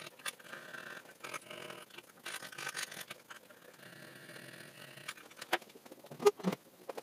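Small hand file scraping in a series of short strokes across the freshly cut end of an aluminium rail, cleaning up the cut. A few sharp knocks near the end, the loudest about six seconds in.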